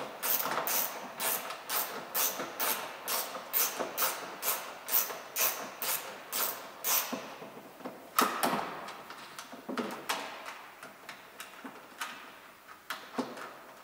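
Socket ratchet clicking in a steady rhythm, a little over two clicks a second, while undoing the 10 mm screws that hold the tail light; about eight seconds in comes a louder knock, then fewer, scattered clicks.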